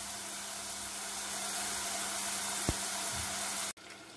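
Diced potatoes deep-frying in hot oil in a pot: a steady, dense sizzling hiss. Near the end it cuts off sharply to the quieter sizzle of meatballs frying in oil.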